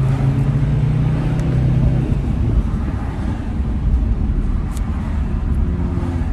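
Audi RS3's turbocharged five-cylinder engine, fitted with an Eventuri intake, heard from inside the cabin while driving. A steady engine note drops away about two seconds in, leaving low engine and road rumble.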